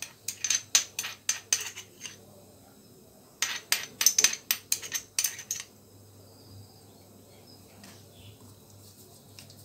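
Metal spoon clicking and scraping against a dish while minced garlic is spooned onto raw chicken pieces, in two quick runs of sharp clicks, each about two seconds long, with a short pause between.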